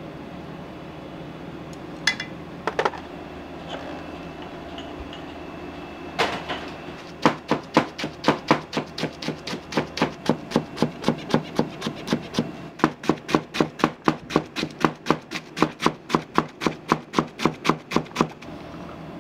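Food prep on a kitchen board: a steady run of sharp strikes, about four a second, with a short pause partway through. A couple of light utensil clinks come a few seconds before it.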